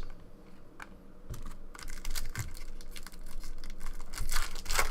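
Baseball trading cards being handled and flipped through by hand: a run of light clicks and rustles that comes in two bunches, about two seconds in and near the end.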